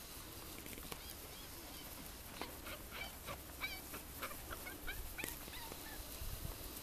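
Borzoi puppies giving a string of short, high yelps and squeaks while running, bunched together in the middle few seconds.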